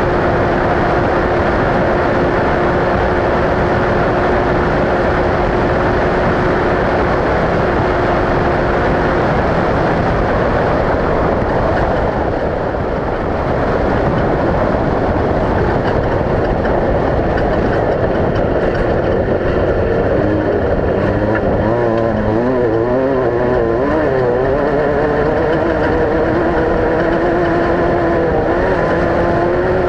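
Off-road race vehicle engine running hard amid constant loud mechanical noise. For the first nine seconds or so it holds a steady pitch. Later it rises and falls quickly as the engine revs up and down.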